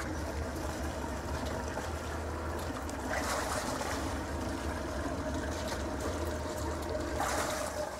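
Sea Ray cabin cruiser's engines idling at the dock, a steady low hum with a rushing, splashing wash over it. The wash swells briefly twice, about three and seven seconds in.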